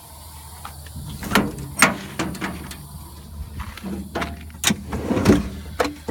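Steel tool chest drawers sliding and metal tools clanking, a run of sharp knocks and clunks starting about a second in.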